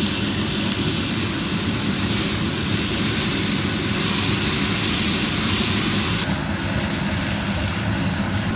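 Cabbage, carrot, onion, garlic and ginger frying in hot oil in a pan: a steady hissing sizzle that thins out about six seconds in, over a steady low mechanical hum.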